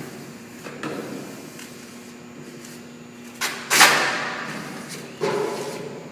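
Squeegee strokes pressing a vinyl decal onto a roll-off container's steel panel: a few quick scraping swipes, the loudest about four seconds in.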